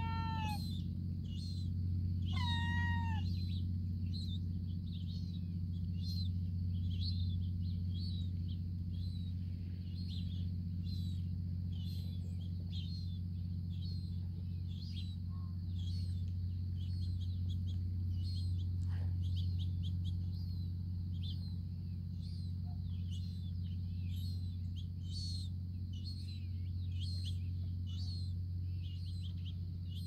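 Young gull's begging calls: two whistled, meow-like calls that bend downward, one at the start and one about two and a half seconds in. After them comes a long run of short high peeps, repeating roughly every half second. A steady low hum runs underneath.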